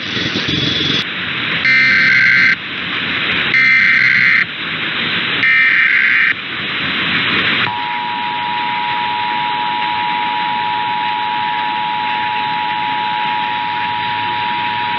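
Emergency Alert System test signal on AM radio. Station music cuts off about a second in, then the three short, buzzy SAME header data bursts play about two seconds apart. About eight seconds in, the steady two-tone EAS attention signal starts, over AM radio hiss.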